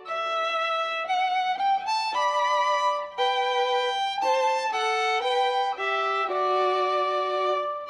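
Background music: a slow melody of held notes played one at a time, each note changing every half second to a second.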